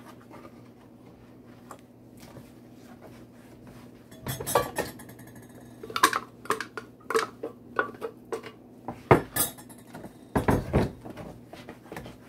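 Metal pots and kitchen utensils clattering and clanking at a stovetop: a run of sharp knocks and scrapes that starts about four seconds in, with the loudest clank about nine seconds in, over a steady low hum.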